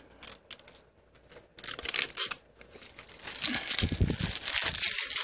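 Thin clear protective plastic film being peeled off a laptop, crinkling and tearing. It comes in two spells: a short one about one and a half seconds in, and a longer one from about three and a half seconds on.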